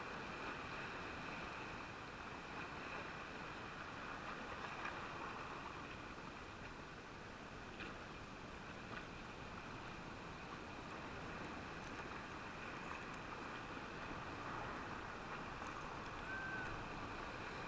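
Steady wash of sea surf on rocks, with a few faint clicks.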